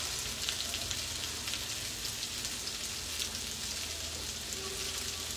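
Sardines frying in oil in a cast-iron skillet: a steady sizzle dotted with small crackles and pops.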